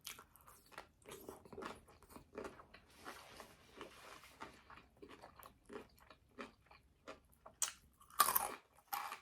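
Close-miked chewing of crunchy food, with many small irregular crunches and a louder crunch about eight seconds in.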